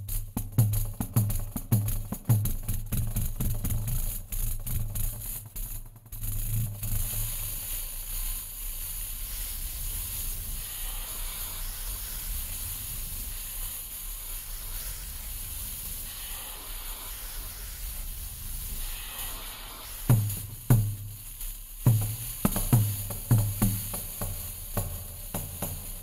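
Pandeiro played with live laptop processing: rhythmic strokes with deep thumps and jingles, giving way after about six seconds to a steady hissing wash, then sharp strokes come back near the end.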